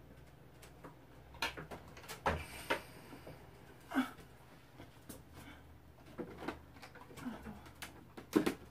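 Scattered knocks and clatter of objects being handled and set down on a table, the loudest near the end, over a steady low hum.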